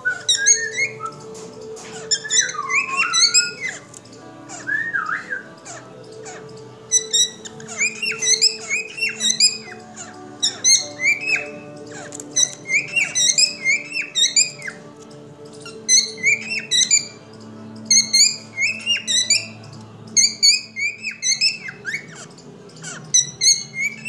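A cockatiel whistling, repeating a phrase of short swooping notes over and over with brief pauses between.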